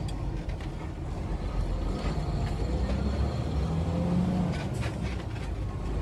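Semi truck's diesel engine running with a steady low rumble, heard from inside the cab while the truck is under way.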